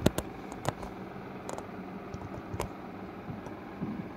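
Handling noise from a camera being picked up and moved: several sharp clicks and knocks in the first three seconds over quiet room noise.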